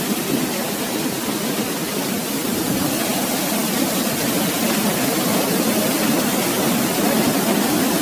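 Steady, unbroken rush of water from a waterfall.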